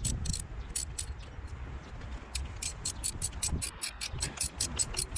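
Ratchet wrench clicking: a few clicks in the first second, then a quick, even run of about six clicks a second from about two seconds in, as a spark plug is worked loose.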